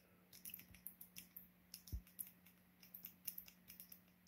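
Faint, irregular clicking of buttons being pressed, a few a second, as a password is typed in, over a steady low hum, with one soft thump about two seconds in.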